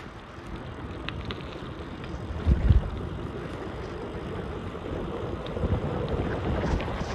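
Wind buffeting the microphone over the running noise of a bicycle on the move, with a loud low thump about two and a half seconds in and a few faint clicks.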